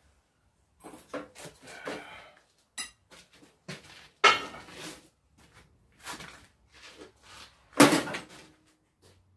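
Heavy welded steel anvil stand, its legs filled with sand, being handled and shifted to be flipped over: a series of irregular knocks and clanks, with two loud bangs about four seconds in and near eight seconds.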